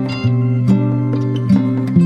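Background music: plucked acoustic guitar playing repeated picked notes.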